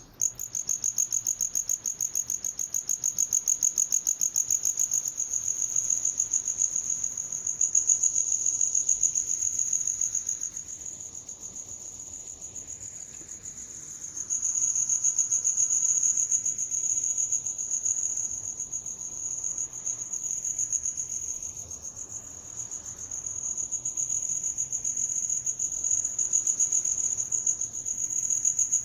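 A cricket singing a steady, rapidly pulsed high-pitched trill without a break. Its level fades and swells as it is panned around the listener by an 8D spatial effect, dipping noticeably about eleven seconds in before rising again.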